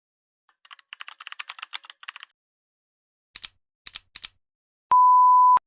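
A quick run of light clicks like typing for about a second and a half, then three sharp, loud clicks in close succession, then a steady, high-pitched beep lasting under a second.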